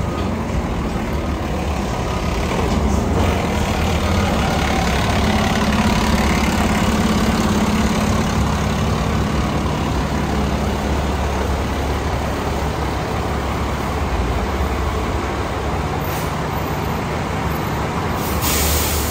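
Fire truck's diesel engine idling, a steady low rumble.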